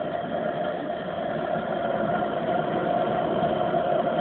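Engine idling steadily while it warms up, with the temperature gauge not yet at 50.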